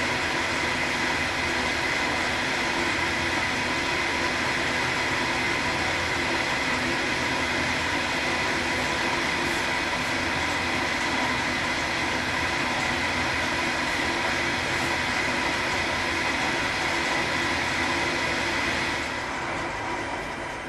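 Schaublin SV-51 milling machine running and face-milling with an insert cutter on the final pass, a steady grinding noise carrying several steady tones. It tails off over the last couple of seconds.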